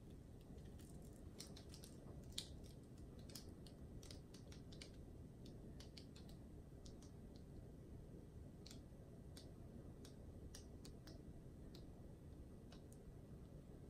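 Near silence: a low steady hum with faint, scattered small clicks and ticks as a wet acrylic-pour canvas is tilted and handled by gloved hands, paint dripping off its edge.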